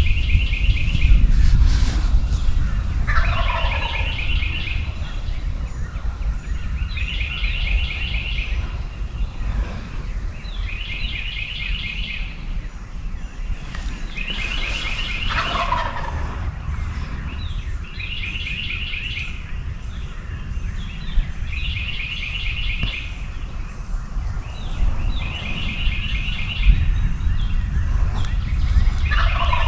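Wild turkey gobbling three times, about twelve seconds apart, with another bird repeating a short high trill every few seconds, over a steady low rumble.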